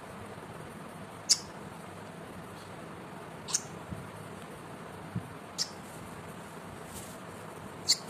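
Pet ring-necked parrot giving short, sharp, high chirps, about five spread over several seconds while it plays, with a couple of faint taps between them.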